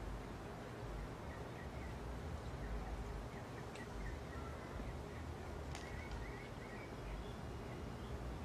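Quiet backyard ambience: a steady low rumble with a few faint, short bird chirps scattered through it and a couple of soft clicks.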